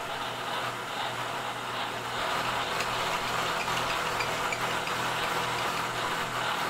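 Vertical milling machine running with its end mill side-cutting around the inside wall of a pocket in cast jig plate, the first rough pass after plunge cutting. A steady motor hum sits under the continuous noise of the cut, with scattered small ticks of chips.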